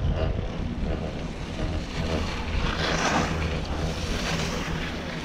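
1986 Doppelmayr detachable quad chairlift running: a steady low hum from the haul rope and chairs passing over the tower sheaves, with wind noise on the microphone and a rushing swell of noise about three seconds in.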